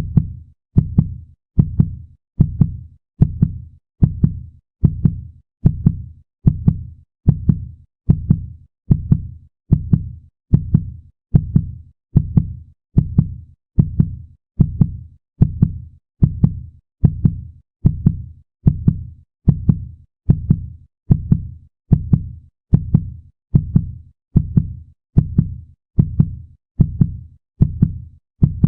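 Fast human heartbeat sound effect: a steady, even rhythm of low double thumps (lub-dub), a little over one beat a second.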